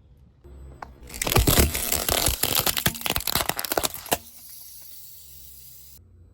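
A car tyre rolling over and crushing brittle objects: a burst of loud cracking and crunching lasting about three seconds, with a low rumble of the car before and after.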